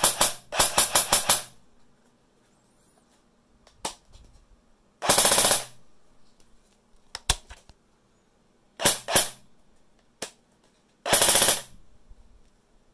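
Electric airsoft SMG (APEX Prowler with PTS PDR-C ETU and Perun kit) firing several short full-auto bursts of rapid, sharp mechanical shots. A few single clicks fall between the bursts.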